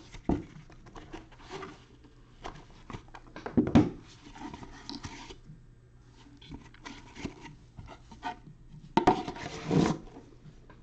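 A cardboard trading-card hobby box being handled and opened by gloved hands: lid rubbing and sliding, with scattered light knocks, a louder thump a little under four seconds in, and more handling noise around nine seconds in.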